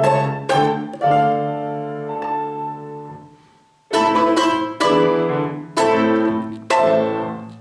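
Instrumental music: a run of struck or plucked chords, each ringing and fading, that dies down almost to nothing a little past three seconds in, then four more chords about a second apart, the last one fading away.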